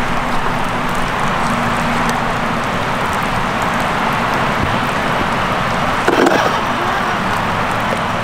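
Steady rush of stream water and rain around the rocks, with the faint whine of the RC crawler's electric motor and drivetrain in the first couple of seconds and a short louder burst about six seconds in.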